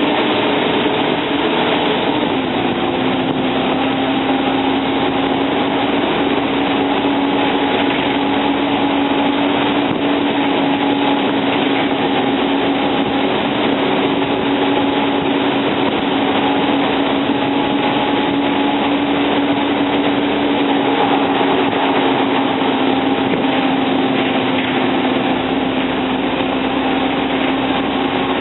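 Cummins L10 straight-six diesel engine of a Volvo Olympian double-decker bus, heard from on board. Its note falls over the first few seconds and then holds steady.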